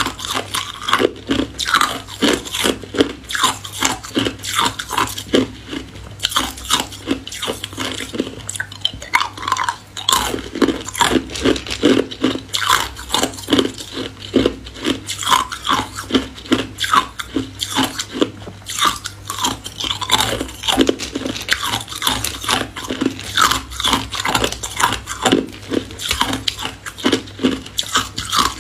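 Ice being bitten and chewed: a steady run of sharp crunches, several a second.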